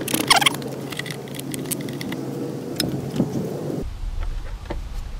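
Small clicks, taps and rubbing as a rubber fuel hose is worked onto the fuel tank's outlet by gloved hands and pliers, with a brief squeak near the start, over a steady low hum. About four seconds in the background switches abruptly to a dull low rumble.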